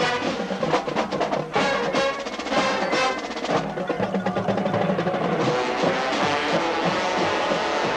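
Drum and bugle corps playing: the drum line strikes a fast run of hits over the horns for about the first three and a half seconds, then the bugle line holds sustained chords.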